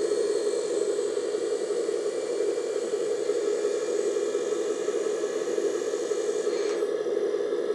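1/14 scale RC hydraulic dump truck raising its tipper bed: the brushless-motor hydraulic pump runs steadily, mixed with the truck's sound-module engine noise. The higher hiss stops about seven seconds in, as the bed nears full tilt.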